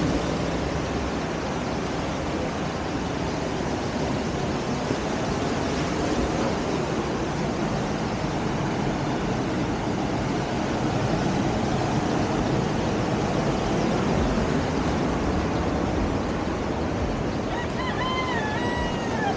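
Ocean surf washing onto the beach, a steady rushing noise. Near the end a brief high pitched tone wavers and steps in pitch.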